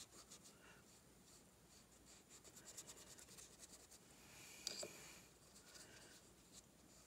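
Faint scratching of a wet paintbrush dabbed and stroked over sketchbook paper, spreading water through marker ink. There is a quick run of light strokes in the middle, then one sharper tap.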